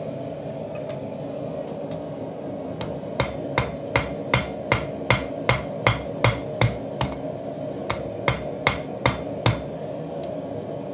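Hand hammer striking red-hot Damascus steel on an anvil while forging an integral knife's bolster. About fifteen blows come at two or three a second, beginning about three seconds in, with a short pause midway and a faint ring after some strikes. A steady low hum sits underneath throughout.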